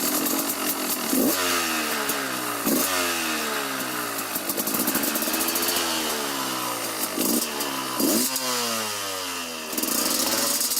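KTM 200 EXC single-cylinder two-stroke motorcycle engine with an FMF Gnarly exhaust, revved up sharply and falling away again several times as it is ridden.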